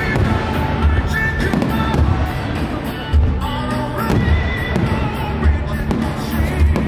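Fireworks display bursting over loud music, with low thumps about once a second under a held melody.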